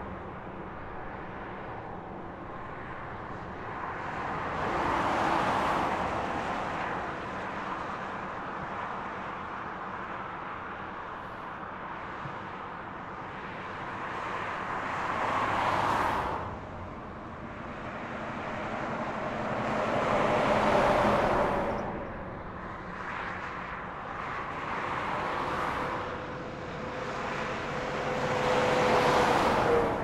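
Sparse interstate highway traffic: vehicles, among them a semi-truck, pass one at a time, about five in all. Each swells to a rush of tyre and engine noise and then fades, over a low, steady road hum.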